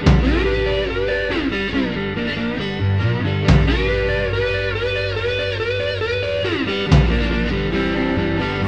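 Instrumental break in a blues song: a lead part plays bending, wavering notes over a steady bass line, with a heavy low accent about every three and a half seconds.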